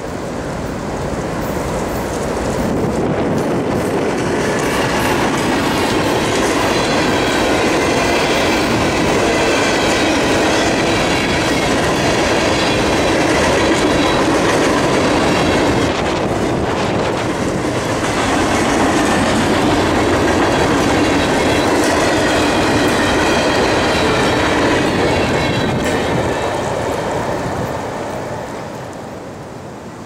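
CSX freight train of empty trash-container flatcars passing close by, led by a GE ES40DC locomotive: steady rumble and clickety-clack of wheels over the rail joints, building as the train arrives and fading near the end as it passes.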